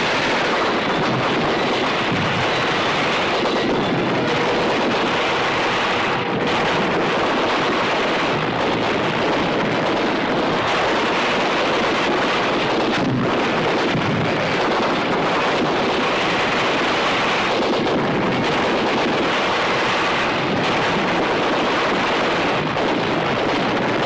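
A steady, loud rushing roar of battle sound effects, with no single shot or blast standing out.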